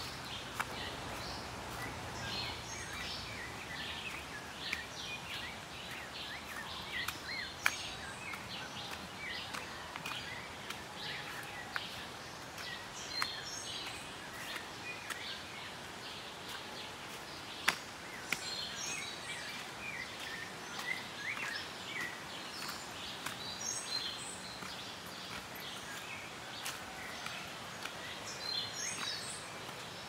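Many small birds chirping and calling in the forest, short scattered calls throughout, over a steady background hiss, with a few sharp clicks.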